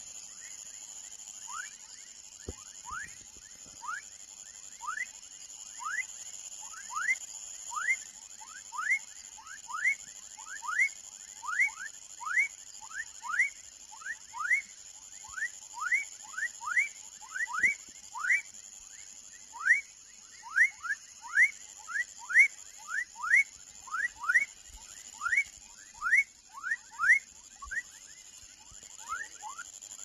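A frog calling: short rising whistles, repeated about one and a half times a second, with a steady high-pitched buzz behind them.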